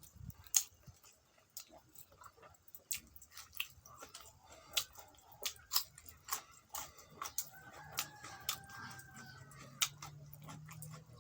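Close-miked chewing of food, wet mouth clicks and smacks at an uneven pace of a few a second.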